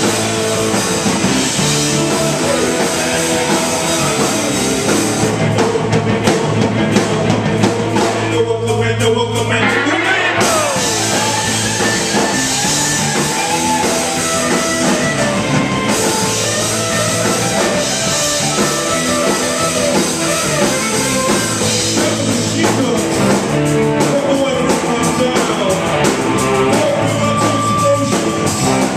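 Live rock band playing loudly through a small club PA: electric guitars, bass and drum kit with a singer. The cymbals drop out briefly about nine seconds in.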